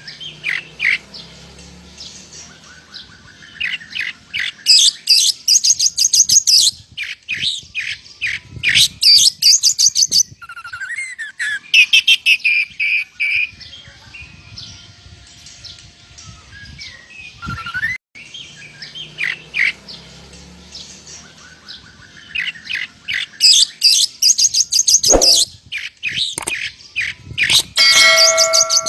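Oriental magpie-robin singing continuously, its song filled with mimicked lovebird chatter: bursts of rapid, high repeated notes alternating with short whistled glides, with brief pauses between phrases.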